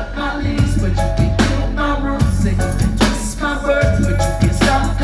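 Live reggae band playing through a PA: electric guitar, bass guitar and drums, with a heavy bass line and regular drum hits.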